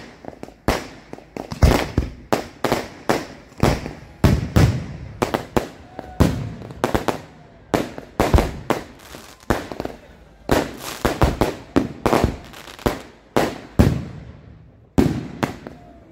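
Fireworks going off in a rapid string of sharp bangs and bursts, about two a second, with a short pause shortly before the end.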